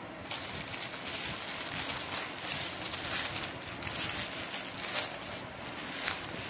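Plastic and brown paper parcel wrapping rustling and crinkling as it is torn open by hand, a steady run of crackles and small snaps.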